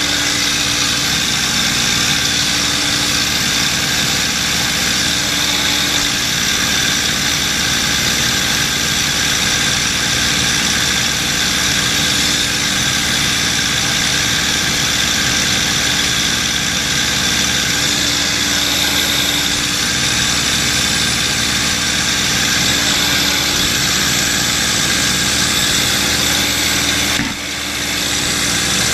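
P-51 Mustang's Packard Merlin V-12 engine and propeller running steadily in cruise flight, heard from inside the cockpit along with wind noise. The sound dips briefly near the end.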